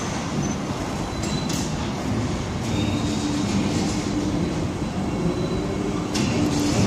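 Overhead crane with a C-hook running during the loading of a heavy steel coil: a steady machine hum with a faint high whine, and a few sharp clicks about a second in and again near the end.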